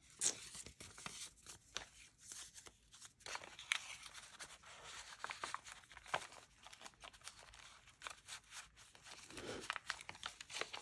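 Faint, intermittent rustling and crinkling of paper as an old paper document is handled and slid into a pocket among the journal's layered paper pages.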